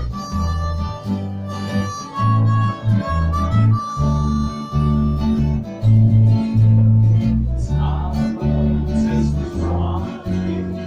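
Instrumental break of a Czech folk song: a harmonica plays a melody with held, bending notes over acoustic guitar and a low bass line, the harmonica dropping back about halfway through.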